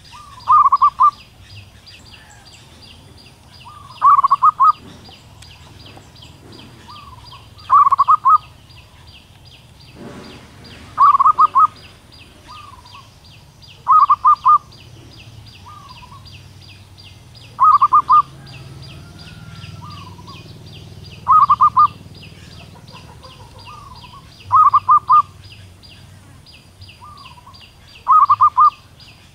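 Female zebra dove calling to attract a male: nine short bursts of quick cooing notes, about one every three and a half seconds, with a softer single note between most of them. A steady, rapid, high-pitched ticking runs underneath.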